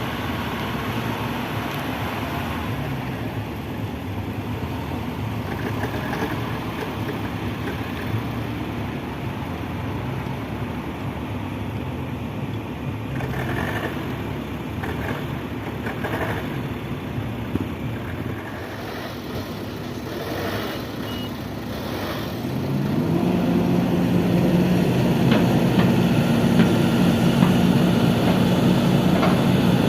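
Kobelco SK200 excavator's diesel engine running, with a few knocks partway through. About three-quarters of the way in, the engine revs up and holds at a higher, louder pitch under load.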